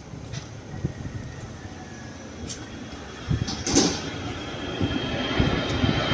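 Ambient vehicle noise: a steady low rumble with scattered knocks and clicks, growing louder near the end as a faint high whine comes in.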